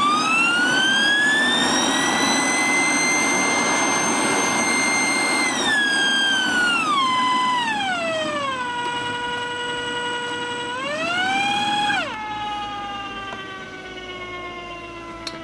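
Three-phase side channel blower run from a variable frequency drive, its impeller blades screaming with a high whine over a rush of air. The whine climbs and holds, then steps down in pitch as the drive's speed is turned down, rises briefly, and drops away about twelve seconds in, falling slowly as the blower slows.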